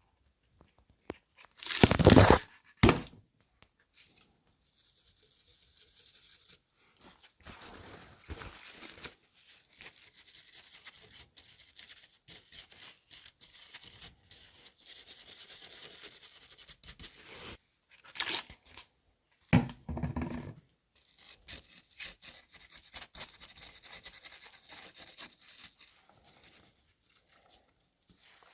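Intermittent scratchy scrubbing and rubbing on a circuit board as flux is cleaned off around freshly soldered USB-C port contacts. There are a few louder sudden bumps of handling: two close together about two seconds in, and two more about two-thirds of the way through.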